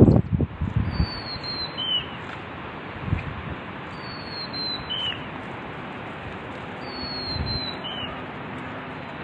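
A river rushing steadily while a bird repeats a high whistled call three times, about three seconds apart, each a thin descending whistle ending in a short lower note. Wind buffets the microphone in the first second.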